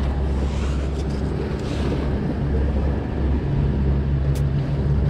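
A motor running at a steady low drone, its pitched hum growing stronger about three and a half seconds in.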